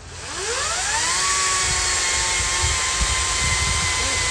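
An electric power tool's motor spinning up to speed with a rising whine over the first second, then running free at a steady high pitch.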